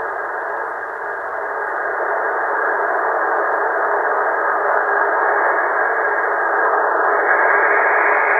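Yaesu FT450D HF receiver's speaker giving out steady 20-metre band static, a narrow, muffled hiss with no station heard. It slowly grows louder and turns a little brighter about seven seconds in.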